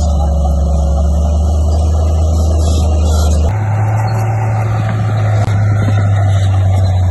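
Bulldozer diesel engine running with a steady low drone. About three and a half seconds in, the pitch and character change abruptly.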